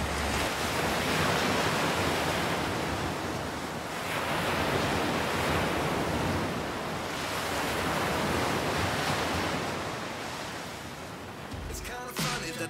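Wind and breaking waves rushing around a sailing yacht running before a strong breeze in rough, steep seas, swelling and easing in surges every few seconds. Music comes in near the end.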